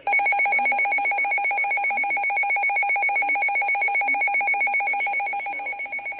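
Weather alert radio's built-in alarm going off for an incoming alert: a loud, rapidly pulsing, buzzy electronic beep that holds steady and fades slightly near the end.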